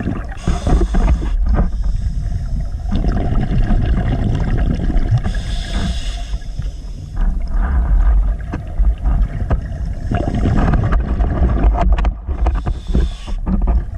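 Underwater audio from a camera housing moving over a seaweed-covered seabed: a steady low rumble of water moving around the housing with crackling, and three short spells of hiss several seconds apart.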